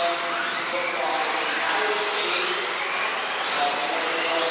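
Several 4WD off-road RC cars racing on an indoor track. Their motors whine in short, high rises and falls in pitch as they accelerate and brake, one after another.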